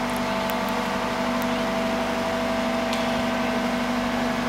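Mobile truck crane's diesel engine running steadily while hoisting a maypole: a constant drone with a steady hum.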